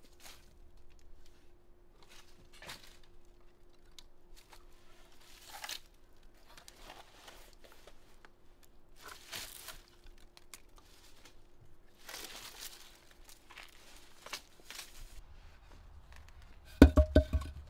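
Dry firewood logs scraping and clattering as they are pulled one by one from a woodpile, then several loud wooden knocks in quick succession near the end as logs are dropped into a clay tandoor.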